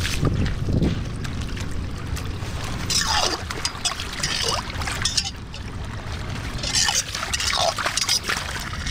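Floodwater pouring and gurgling through a drain opening under a concrete curb, with louder splashing surges about three seconds in and again near seven seconds.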